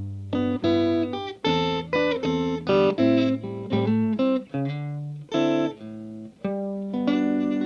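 Electric guitar played clean through a Mesa Boogie valve amp and a 1x12 Greenback cabinet: a lick of separate picked notes and short chords, ending on a chord held from about seven seconds in.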